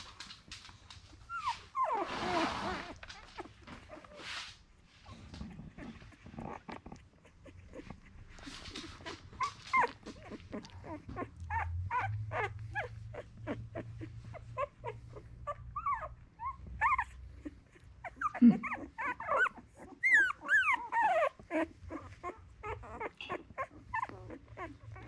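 Litter of two-week-old miniature Australian cattle dog puppies whimpering and squeaking, a run of short high-pitched cries that gets busiest toward the end.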